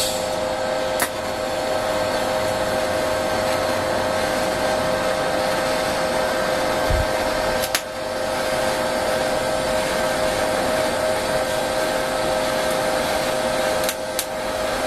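TIG welding arc running steadily at about 100 amps: a constant hiss with a steady whine underneath. It dips briefly about a second in, near eight seconds and again near the end.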